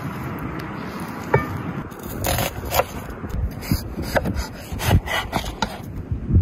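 Kitchen knife scraping and cutting on a wooden cutting board: a scrape as chopped raw lung is pushed across the board, then a run of sharp knife strokes from about two seconds in as the knife slices through raw potato.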